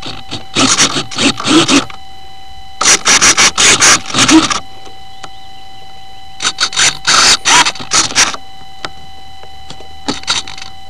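Four bouts of rustling and scraping, about a second or two each, from the model plane and its onboard camera being handled. A faint steady high whine runs underneath.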